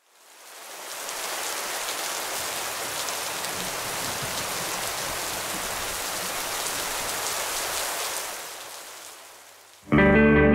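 Steady rain falling, with faint scattered drop ticks. It fades in over the first second and fades away about eight to nine seconds in. Guitar music then starts abruptly near the end.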